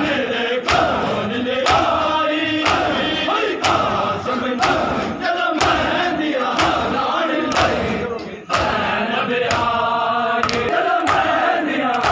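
A crowd of men doing matam, striking their chests with open hands together in a steady beat of about one sharp slap a second, while they chant together between the strokes. The beat falters briefly about two-thirds of the way through, then resumes.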